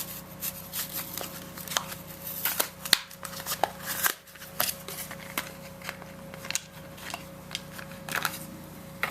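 Irregular crinkling and sharp clicks of packaging being handled as a new turn signal bulb is taken out, over a steady faint hum.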